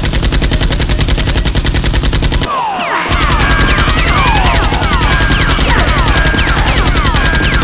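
Rapid automatic gunfire, a long unbroken string of shots that breaks off briefly about two and a half seconds in, then resumes with many short falling whistles, like ricochets, over it.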